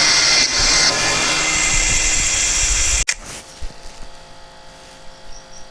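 A power tool running loudly, a dense hissing whir that stops abruptly about three seconds in. A much quieter steady hum follows.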